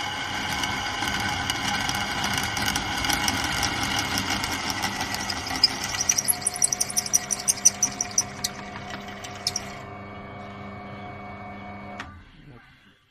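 Peugeot drill press motor running while its twist bit cuts into a metal workpiece, with a burst of sharp, chattering squeaks from the bit about six to nine seconds in. The bit then spins free. Near the end there is a click, and the motor runs down and stops.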